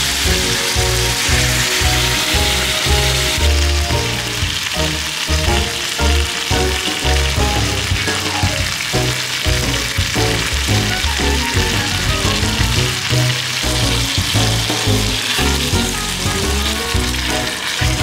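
Food sizzling and frying in a hot cast-iron skillet: first steak and shrimp searing, then a red-sauced shrimp and octopus stir-fry. Background music with a steady bass beat plays over it.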